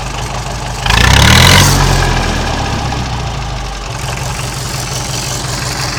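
Massey Ferguson 130's Perkins four-cylinder diesel engine idling just after starting; about a second in it is revved up sharply, then eases back down to a steady idle.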